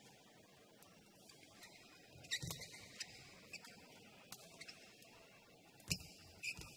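Badminton rally: faint, sharp racket strikes on the shuttlecock, several times, the loudest about six seconds in, with short shoe squeaks on the court floor.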